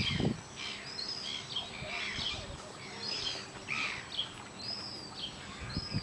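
Small birds chirping and calling, many short high-pitched calls repeating throughout, with a brief low rumble near the start.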